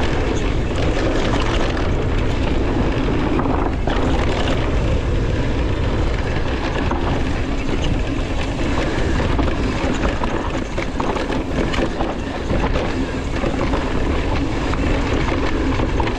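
Mountain bike ridden fast down a dry dirt trail: wind rushing over the microphone, tyres rumbling over the ground and the bike rattling, with scattered clicks and knocks over bumps.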